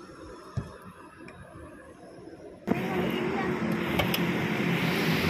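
Low rumble inside a moving car. A little over two and a half seconds in, it cuts suddenly to much louder street noise: road traffic with some voices mixed in.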